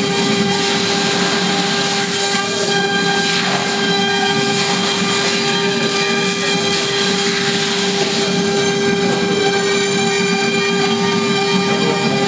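CNC wood router milling a carved relief in wood: the spindle runs with a steady high whine while the fine engraving bit cuts, with a continuous hiss of cutting.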